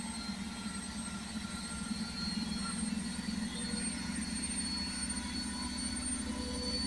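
Beko washing machine running with a steady mechanical drone.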